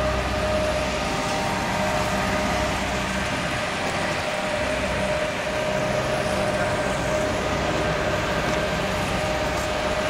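A steady mechanical hum with a constant whine, unchanging throughout, from some running engine or machine.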